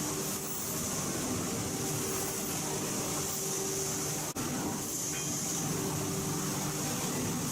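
Steady hum and hiss of factory machinery, with a brief dropout a little past four seconds in.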